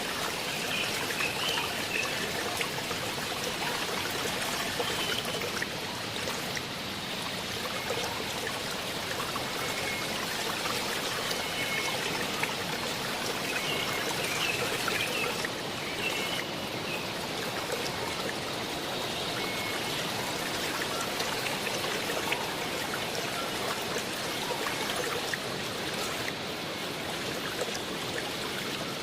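Waterfall water rushing and splashing in a steady, even wash, with faint short high chirps now and then.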